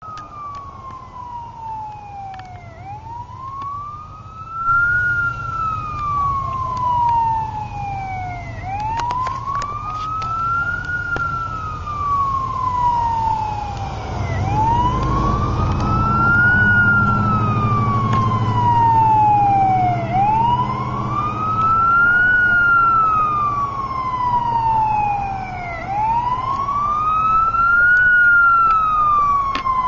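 Fire department assistant chief's response vehicle siren on a slow wail, each rise and fall taking about six seconds. The vehicle's engine and road noise grow louder about halfway through, as it gets under way on the run to an alarm call.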